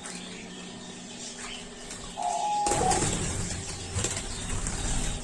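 Pet doves fluttering their wings and scrabbling about, starting about halfway through as they move up from the feeding spot toward the nest, after a brief high whistling note.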